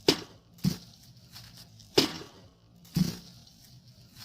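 Four sharp chopping impacts of a sword blade striking a pumpkin, irregularly spaced over about three seconds.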